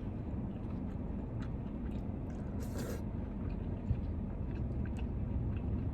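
Quiet eating sounds: faint chewing and small clicks over a steady low rumble, with a brief scrape about three seconds in, like a utensil on the takeout plate.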